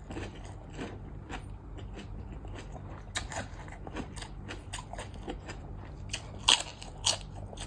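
Close-miked eating: irregular crunching bites and chewing of crisp food, with a scatter of sharp cracks, the loudest two near the end, over a steady low hum.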